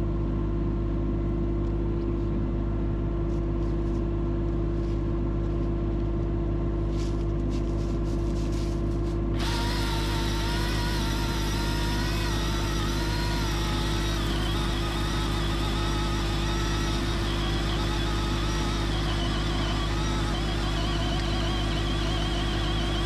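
Caterpillar mini excavator's diesel engine idling steadily. About nine seconds in, a chainsaw cuts in and saws through a log, its pitch wavering as it works the wood.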